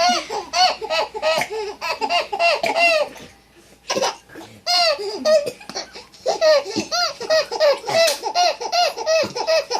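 Baby laughing in fits of high-pitched giggles, a quick string of short breathy bursts that pauses briefly about three seconds in, then starts up again.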